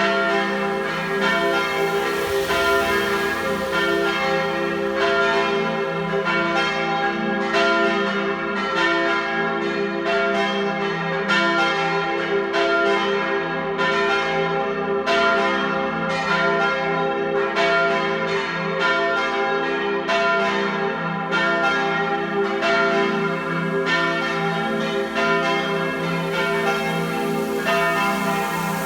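Several parish church bells ringing together in a partial peal, calling to evening Mass. Strikes overlap at a little more than one a second, and each bell's hum carries on between strokes, so the ringing never breaks.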